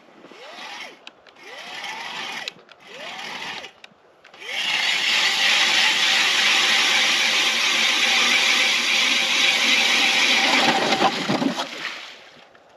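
Power ice auger spun briefly three times, each spin rising and falling in pitch, then run steadily for about seven seconds as it drills through the lake ice, winding down near the end.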